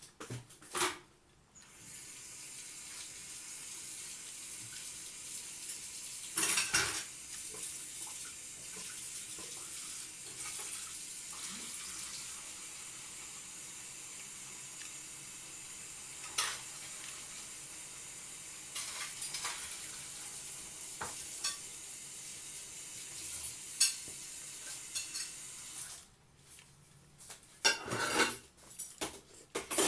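Water running steadily, as from a tap, with a few clinks and knocks of dishes. The water comes on about two seconds in and stops abruptly a few seconds before the end, followed by more clatter.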